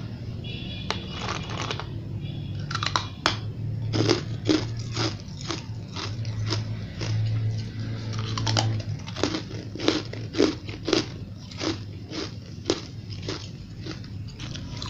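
Frozen, snowball-like ice chunks being bitten and chewed close to the microphone. There is a run of sharp crunches, about two a second, beginning about three seconds in, over a steady low hum.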